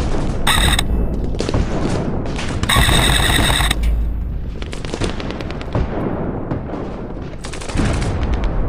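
Two full-auto bursts from an airsoft electric gun: a short one about half a second in and a longer one of about a second near three seconds in. A heavy low rumble and scattered clicks run underneath.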